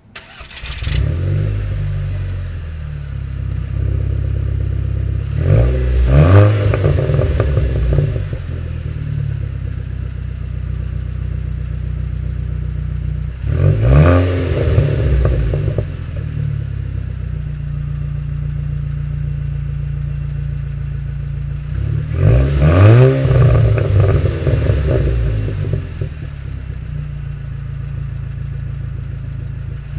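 2008 Volkswagen GLI's 2.0-litre turbocharged FSI four-cylinder running through an aftermarket resonator-deleted exhaust. It idles steadily and is blipped three times, the pitch rising and falling back to idle each time.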